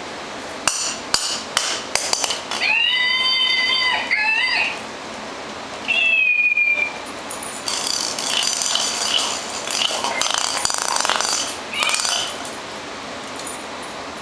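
Babble Ball electronic talking toy ball playing its recorded sounds: a steady-pitched call held for about two seconds, then a short falling whistle, then a few seconds of noisier sound. Sharp clicks and knocks of the plastic ball on the concrete floor come in the first couple of seconds.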